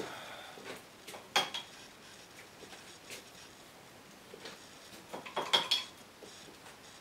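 Clinks and clatter of hard painting tools being handled at a work table: a couple of sharp knocks about a second and a half in, then a cluster of clinks near the end, one with a brief ringing note.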